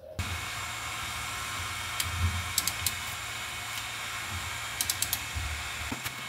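Sharp clicks, singly and in small groups of two or three, from bolts and tools being handled at a car's rear brake drum, over a steady hiss.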